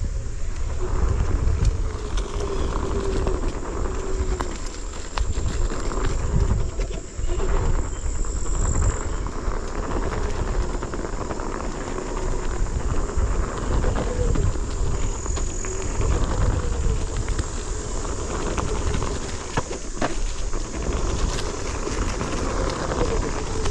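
Onewheel electric board riding along a dirt trail: the hub motor's whine wavers up and down with speed, over a heavy rumble of wind on the microphone and the tyre rolling on dirt, with scattered knocks from bumps in the trail.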